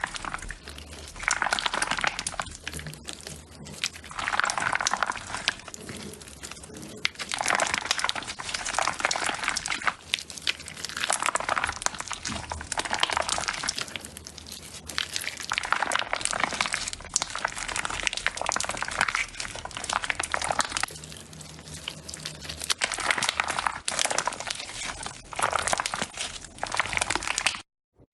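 Slime being squeezed and kneaded by hand, giving dense crackling and clicking in repeated waves every couple of seconds; it cuts off suddenly near the end.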